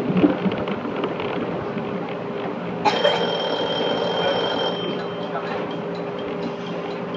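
Electric commuter train running on the JR Nara Line, heard from behind the driver's cab: steady running rumble with a constant motor hum. About three seconds in, a high electronic alarm tone rings for nearly two seconds and cuts off, then faint evenly spaced ticking follows.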